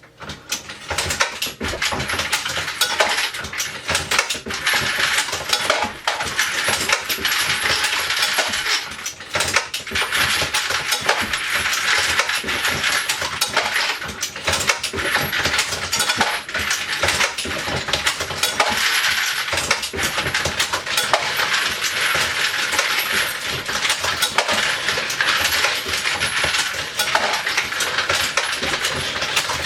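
Metal cartridge parts clattering and jingling continuously as a motor-driven 3D-printed bullet feeder and the case feeder of a Dillon XL650 reloading press tumble bullets and brass cases in their collators, with the press cycling under them.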